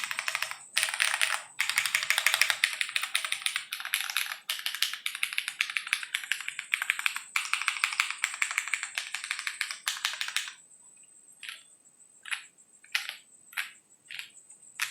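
Typing on a Ginkgo65 keyboard with no foam, polycarbonate plate, Jwick T1 tactile switches and ABS Cherry-profile keycaps. Fast continuous keystrokes run for about ten seconds, then stop, followed by five or six single keystrokes spaced about half a second apart.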